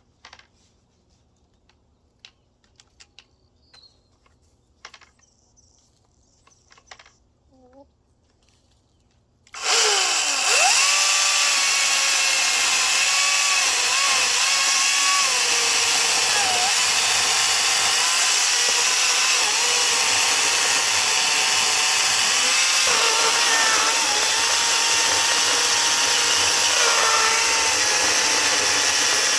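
Light handling clicks, then about nine and a half seconds in a Harbor Freight Atlas 18-inch battery chainsaw comes on at full speed in one jump, with no throttle feathering, and runs on steadily. It is cutting through soft, punky wood, and its motor pitch dips briefly a few times as the chain bites.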